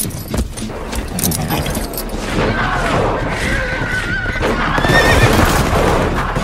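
Show soundtrack of rapid clattering hits, with a wavering high-pitched call over them from about halfway through.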